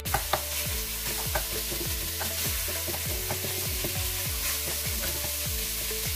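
Ground beef and pork frying in a stainless steel pot on a bed of sautéed carrot, onion and celery, with a steady sizzle. A wooden spoon scrapes and knocks against the pot many times as the meat is stirred and broken up.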